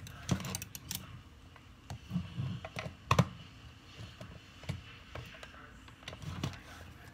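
Irregular small clicks and rattles of metal hand-mixer beaters being handled in their plastic sockets, with the mixer switched off. The loudest click comes about three seconds in.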